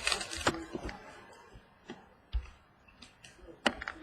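Trading cards being handled and flipped through by hand: a brief rustle of card stock sliding, then a few separate sharp taps and clicks as cards are set down.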